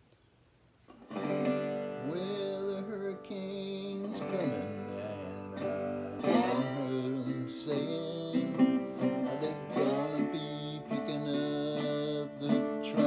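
Resonator guitar played with plucked and strummed notes, some sliding in pitch, starting about a second in, with a man singing along.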